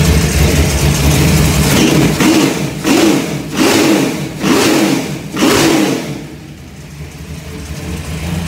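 Carbureted V8 race-car engine idling, blipped by hand at the throttle linkage about five times in quick succession, then settling back to a lower idle. A replacement carburetor has just had its float levels set, and the owner finds it sounds better and is more responsive than his old one.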